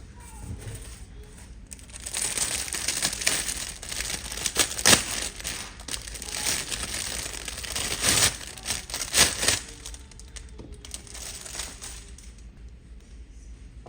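Packaging crinkling and rustling as it is handled, loudest from about two seconds in until about ten seconds in, with sharp crackles throughout.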